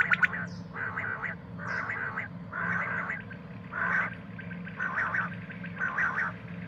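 Common quail giving a run of short rasping calls, about one a second, as used for luring quail when hunting.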